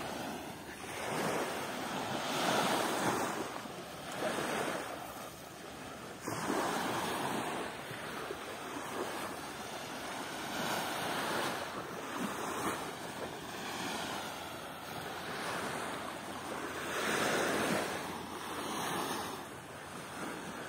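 Rushing noise of small waves washing in at the water's edge, mixed with wind. It swells and eases every couple of seconds, with a sudden louder surge about six seconds in.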